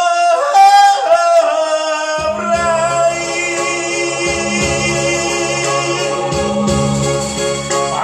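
Man singing in Italian into a handheld microphone over recorded musical accompaniment: a long held note with vibrato first, then the accompaniment's low bass and chords come in a little over two seconds in under the continuing song.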